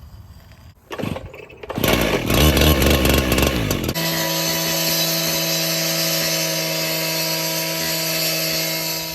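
A motor-driven power tool starts and runs unevenly for a few seconds, then settles into a steady whine at constant speed for about five seconds before winding down near the end.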